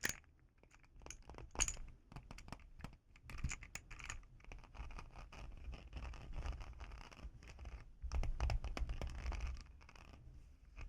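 Small plastic keyboard fidget toy being handled: scattered clicks of its keys mixed with scratching and rubbing, busier for a stretch near the end.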